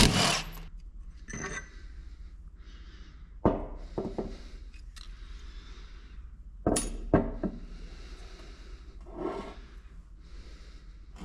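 Loose steel parts of a 4L80E front pump clinking and knocking against metal as the pump bolts come out and the pump is taken apart: a few sharp clinks several seconds apart, with quieter scraping between them.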